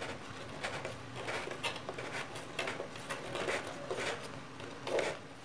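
Hands handling the plywood top of a homemade table saw: irregular light scrapes and knocks of wood rubbing and shifting, with the saw's motor not running.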